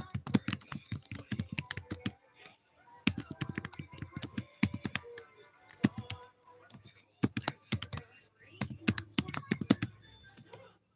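Typing on a computer keyboard: quick runs of keystrokes in bursts of a second or two, with short pauses between them.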